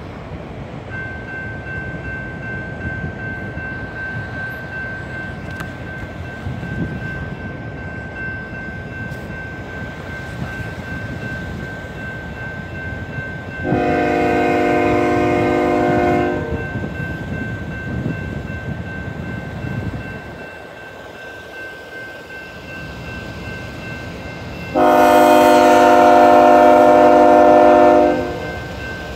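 Level-crossing warning bell starts ringing about a second in and keeps on steadily. An approaching BNSF freight locomotive's multi-chime air horn sounds two long blasts, one about halfway through and a louder, longer one near the end.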